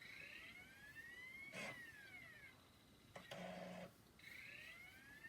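Laptop CD-ROM drive spinning up with a whine that rises in pitch, clicking, then winding down, with a short buzz before the cycle repeats about every four seconds: the drive retrying to read a scratched Windows 95 disc.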